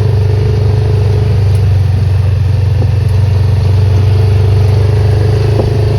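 Honda ATV engine running steadily while riding, a loud, even low hum.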